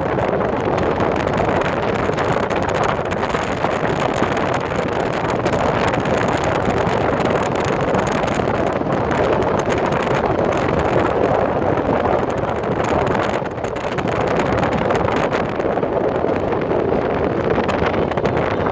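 Wind rushing and buffeting the microphone in a steady, loud noise, dipping briefly once near the end.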